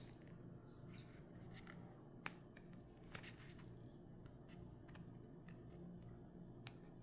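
Near silence with a faint low hum, broken by scattered small clicks and taps from small objects being handled.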